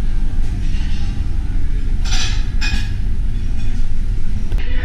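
A steady low rumble, with two short metallic clatters about two seconds in, half a second apart, as stainless-steel buffet pans are handled.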